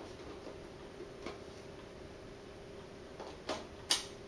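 A few light clicks of a Nikon 24-70 mm zoom lens being handled and fitted onto a Nikon D700 camera body, the sharpest click near the end.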